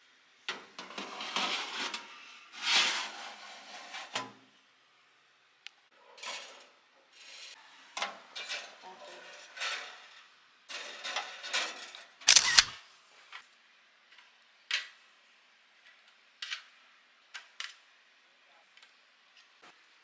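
Metal baking tray and wire-mesh air-fry basket being handled and slid on the racks of a countertop air fryer oven: irregular metallic scraping and rattling with scattered clicks and one loud clank about twelve seconds in.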